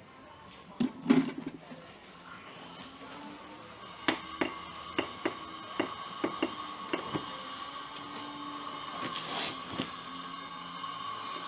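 A run of sharp taps and knocks from masonry work, a trowel or hammer striking brick, about two a second from around four seconds in, after one louder knock about a second in, over a faint steady hum.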